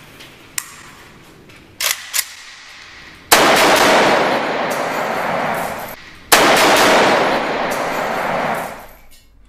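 AK-47 rifle firing on full automatic in two long bursts of about three seconds each, with a short break between them. A few short clicks come before the first burst.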